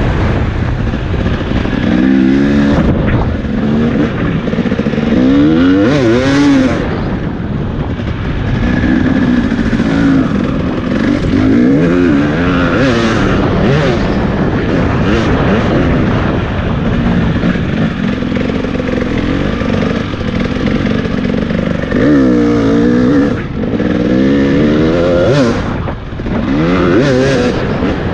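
Off-road dirt bike engine being ridden hard, its pitch revving up and dropping back again and again as the rider works the throttle, with brief lifts off the throttle.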